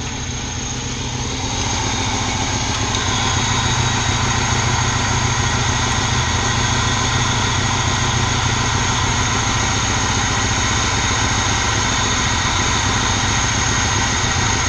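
Moskvich 2140's UZAM-412 four-cylinder petrol engine idling steadily, its idle rising slightly about two seconds in and then holding. It is running while the carburettor mixture is being turned down after running over-rich.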